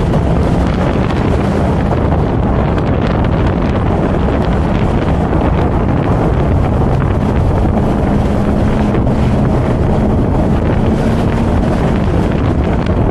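Heavy wind rushing over the camera microphone as the BMW Z4 M40i drives. Under it runs a low engine tone that steps up a little about eight seconds in.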